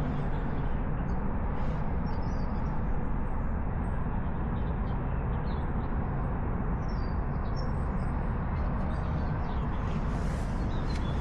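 Steady outdoor park ambience: a constant low rumble and hiss, with small bird chirps here and there.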